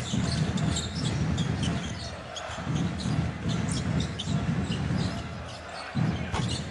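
Basketball being dribbled on a hardwood court, with short squeaks of sneakers and the low hum of the arena around it.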